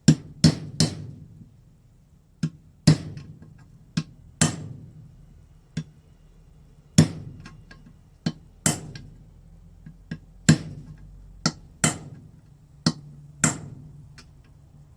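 Hammer tapping a water pump part into the engine casing of a 50 cc two-stroke moped engine: about seventeen sharp, irregular metal strikes, some in quick pairs, each with a short ring.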